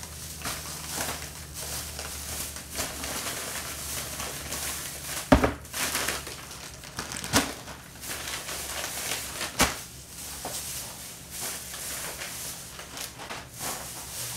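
Plastic grocery bags and packaging crinkling as groceries are unpacked, with packages set down on a kitchen countertop in a few sharp knocks, the loudest about five seconds in.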